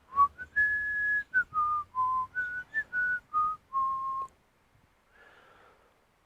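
A person whistling a short tune of about ten notes, clear and varied in pitch, for about four seconds before stopping.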